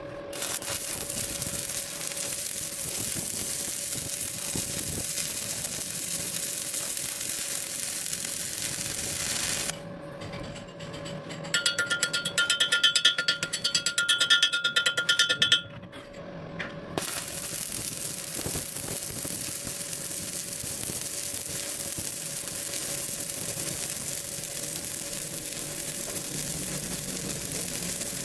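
Electric arc welding on a V butt joint: a steady crackling hiss with a faint hum, which stops about ten seconds in. In the pause there are about four seconds of rapid metallic ticking with a ringing tone, and then the steady welding hiss resumes.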